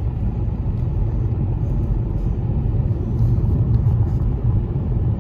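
A car driving at speed on a country road: a steady low rumble of road and engine noise heard from inside the car.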